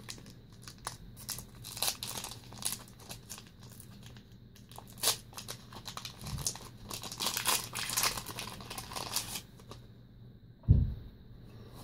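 Foil wrapper of a Yu-Gi-Oh! Magic Ruler booster pack crinkling and being torn open by hand, a run of crackles that thickens in the second half. A single low thump near the end.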